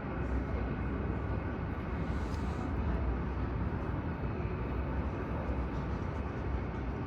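Steady airport ambience dominated by the even rumble of jet airliner engines, with no sudden events.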